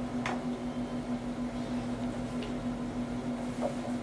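Steady room tone: a constant low electrical-sounding hum with an even hiss, and one faint click about a quarter second in.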